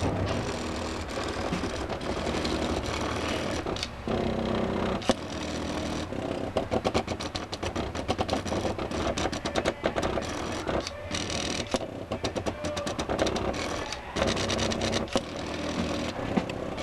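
Stepper motors of a homemade CNC plotter driving its axes. Steady whines and hums alternate with stretches of rapid ticking steps, with brief pauses between moves.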